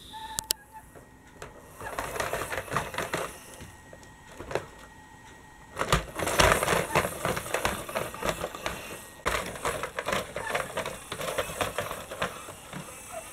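Rapid clicking and clattering of plastic toy vehicles being handled and rolled over wooden toy track, in three spells of a few seconds each.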